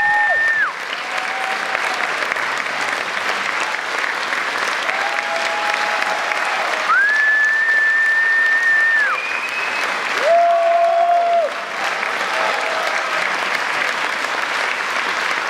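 A full theatre audience applauding steadily in a standing ovation, with several long, held whoops and whistles rising above the clapping.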